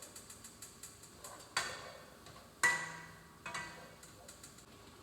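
Three sharp clinks with a brief ring, the middle one loudest, among faint light ticks: kitchenware being handled.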